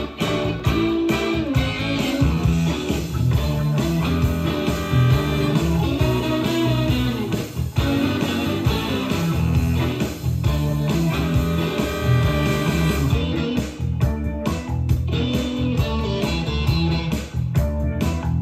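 Guitar-based music played back from a Type II (chrome) cassette on a Sony TC-K777ESII three-head cassette deck, with a steady bass line running underneath.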